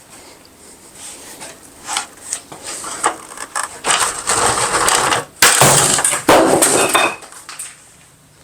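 Handling noise of hard objects: a few scattered knocks, then long rough scraping and rattling stretches through the middle, fading to quiet near the end.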